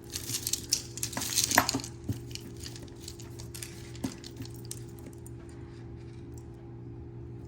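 Tangled metal jewelry chains and pieces clinking and rattling against each other as they are pulled apart. The clinks are dense for about two seconds, then thin out to a few scattered ones.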